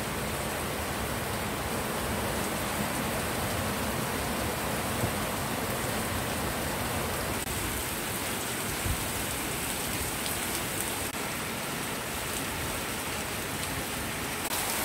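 Steady rain falling on garden plants and wet paving.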